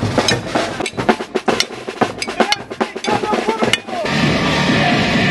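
Sharp drum strikes in an uneven rhythm, with a few short swooping tones among them. About four seconds in, they cut suddenly to loud, dense band music.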